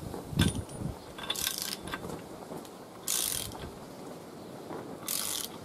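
Socket ratchet on the crankshaft snout of a 308 small-block V8, turning the bare crank in its freshly oiled and torqued main bearings, with the pawl clicking in three short bursts roughly two seconds apart as the handle swings back. The crank is being turned over by hand to check that it spins freely, with no binding or noise from the bearings.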